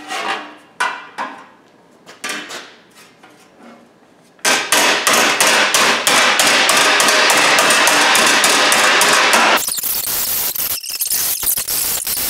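Hammer blows pounding a sheet of 18-gauge steel into shape for a rust repair panel: a few separate ringing strikes, then, about four and a half seconds in, a fast, loud run of hammering that carries on to the end.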